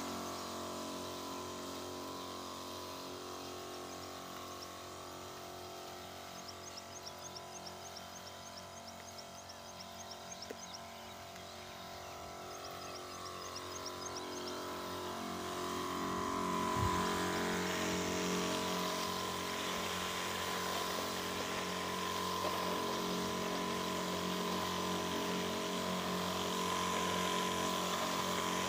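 Battery-powered knapsack sprayer's pump running with a steady hum while spraying weedkiller, getting louder about halfway through. A few quick runs of high chirps come through in the first half.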